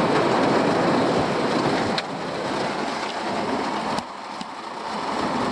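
Steady rain on the campervan, a hiss that drops in level about two seconds in and again about four seconds in.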